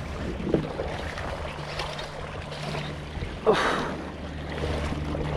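Water lapping and splashing around a fishing kayak during the fight with a hooked fish, over a steady low hum, with a sudden louder sound about three and a half seconds in.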